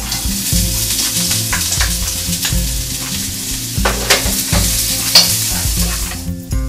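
Chopped shallots sizzling as they hit a hot wok and are stirred with a wooden spoon, a steady frying hiss broken by scrapes of the spoon. The sizzle fades shortly before the end.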